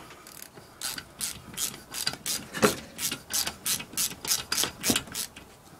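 Socket ratchet clicking in quick, even strokes, about four or five clicks a second, as it backs a cylinder head bolt out of an 8 hp Briggs & Stratton engine.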